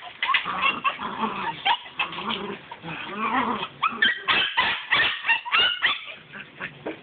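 Eight-week-old Malinois puppy giving short high yips and whines, most of them about four to six seconds in, while scrabbling at a man's trouser leg. Quick scuffing steps scrape on dirt and dry leaves.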